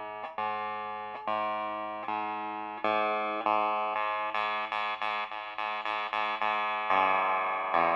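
Wire strings of a large spider-shaped sound sculpture plucked one after another, each note ringing on into the next. Slow at first, then quicker at about three a second, with two louder plucks near the end that ring on.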